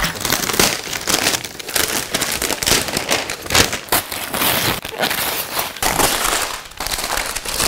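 Wrapping paper being ripped and crumpled off a gift box by hand: a rapid, irregular run of tearing and crinkling.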